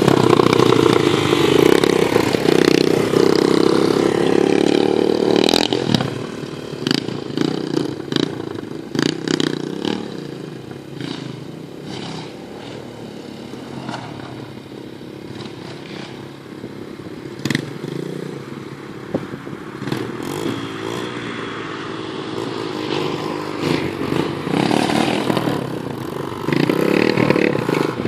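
Off-road vehicle engine running loudly, then dropping back about six seconds in to a lower drone broken by frequent short knocks and clatter, then rising loud again near the end.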